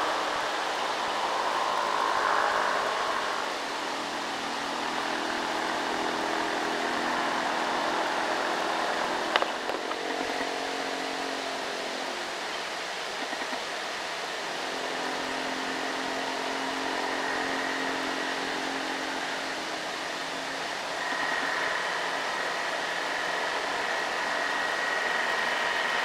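Diesel engines of heavily loaded light trucks running steadily as they pull uphill. A single sharp click comes about nine seconds in, and a high steady whine joins about five seconds before the end.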